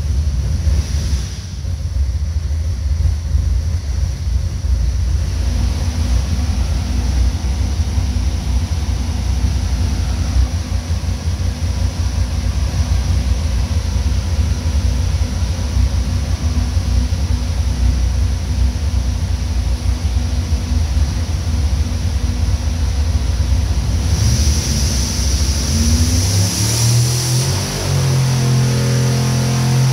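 540 cubic inch SMX V8 racing engine with a gear-driven ProCharger F4X-140 supercharger, running on methanol on an engine dyno. It holds a steady speed, then about four seconds from the end it begins a pull, its pitch climbing steadily as the revs rise.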